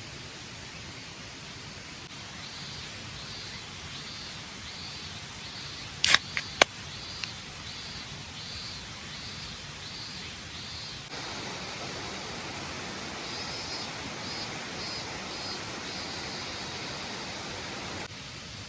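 Outdoor ambience: a steady hiss with a high chirp repeating about every two-thirds of a second. Two sharp clicks come about six seconds in, and the hiss grows louder about eleven seconds in.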